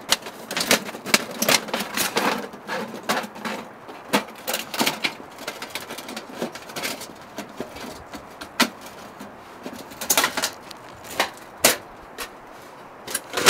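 Thin sheet-metal panels of a folding ultralight wood stove clicking and clinking as they are slotted together into a box. The sharp clicks come in irregular runs, thick through the first half and sparser after.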